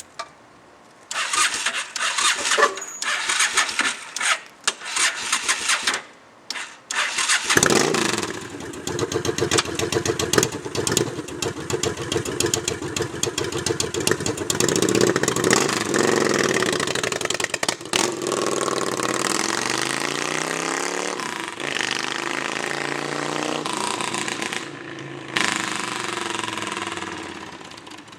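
Honda Shadow Aero VT750 V-twin motorcycle running through Cobra exhaust pipes with the baffles removed, loud. Choppy, broken-up bursts for the first several seconds, then a continuous engine note from about a quarter of the way in, its pitch sweeping down and up in the second half as the bike rides past.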